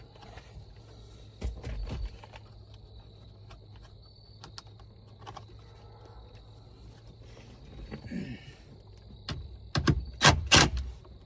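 Scattered clicks and knocks of hand work as a grab handle and dome light are bolted into a Ford Bronco's roof, with a short cluster of louder knocks near the end.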